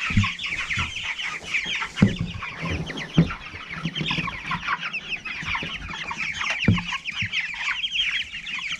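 A flock of four-week-old Meat King broiler chicks peeping, with many short, high calls overlapping throughout. A few dull thumps come at intervals.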